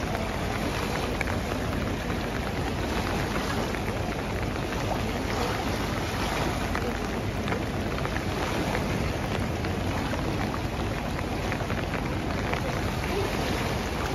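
Steady rushing noise of the Narayani river in flood, swollen and fast-flowing, mixed with rain falling.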